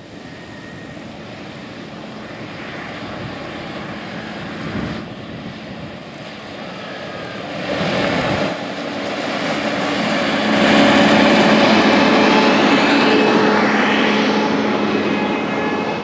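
Gleaner S77 combines' diesel engines running as the machines drive past. The drone grows louder toward the middle and is strongest about ten seconds in, with steady humming tones running under it.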